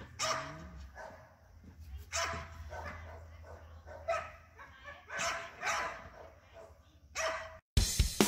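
Pit bull barking repeatedly, a bark every second or so. Near the end the barking cuts off and loud music with a drum kit starts.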